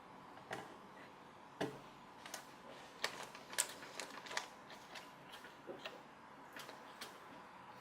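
Faint, irregular clicks and taps from small plastic front-panel connector plugs being handled and pushed onto motherboard header pins.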